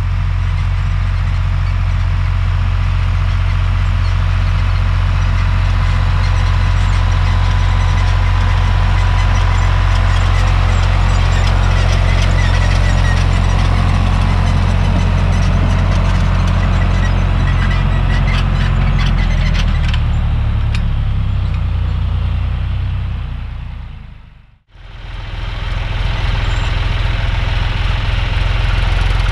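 John Deere tractor's diesel engine running steadily under load while pulling a seed drill across a field, with some rattling in the middle. The sound drops out suddenly for a moment about three quarters of the way through, then the engine carries on.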